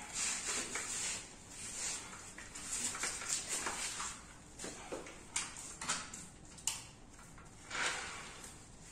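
Handling noises from a car polisher and its pads: scattered rustles and a few sharp clicks and taps as the machine and pad are picked up and fitted, with the polisher itself not running.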